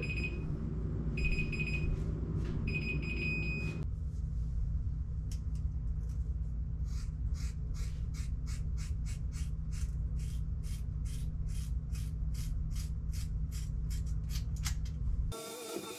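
A digital timer beeps three times, signalling the haircut time is up. From about five seconds in, scissors snip through hair in quick, regular strokes that speed up. A steady low hum runs underneath.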